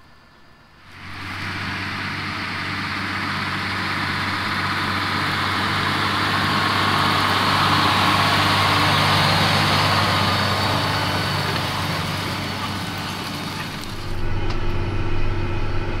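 John Deere 9410R four-wheel-drive tractor working ground with a tillage tool, its diesel engine running under load with a broad rumble and hiss. The sound comes in about a second in, swells toward the middle and eases off again, like the tractor passing close by.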